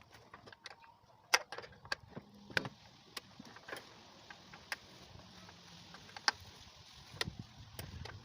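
Irregular sharp clicks and knocks from hand tools and fasteners while a car's fender is being taken off, loudest about a second and a half in and again past the six-second mark.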